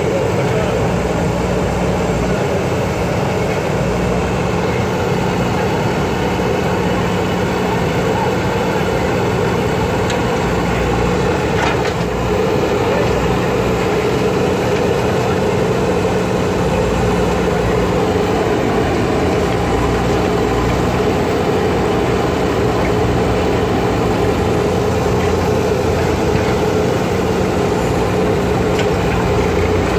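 JCB 3DX backhoe loader's diesel engine running steadily at a constant level while the backhoe works, with a brief click about twelve seconds in.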